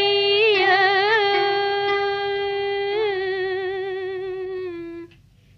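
A cải lương singer holding one long sung note with vibrato at the end of a phrase, slowly fading and stopping about five seconds in.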